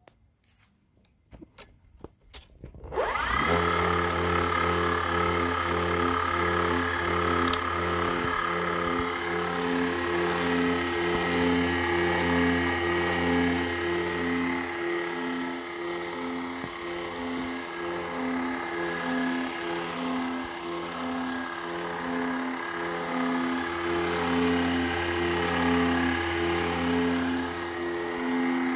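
A homemade motor-driven generator rig, a small brushless DC motor spinning a permanent-magnet alternator, starts up about three seconds in and runs steadily. It makes a low hum and a whine, with a regular pulsing beat about once or twice a second.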